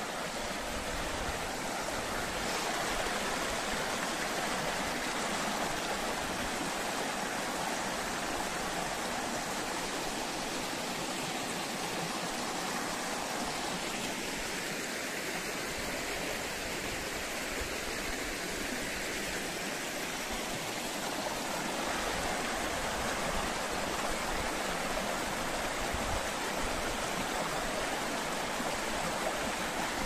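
Shallow stream flowing over a rocky bed, water rushing and splashing through small spills between the stones in a steady, even noise.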